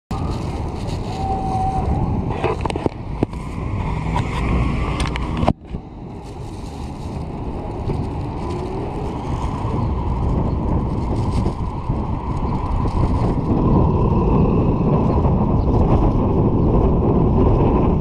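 Steady street traffic and riding noise heard from an electric bike moving through city streets, cutting out abruptly about five and a half seconds in and then building back up.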